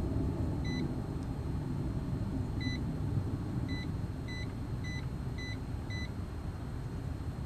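Digital multimeter beeping as it measures the common-to-Herm side of a dual run capacitor: seven short high beeps, the last five about half a second apart. A steady low rumble runs beneath them.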